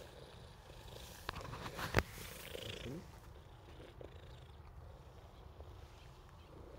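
Tabby cat purring steadily, a fast low rumble close to the microphone. About one and two seconds in there are sharp knocks with rustling as fur or cloth rubs against the phone.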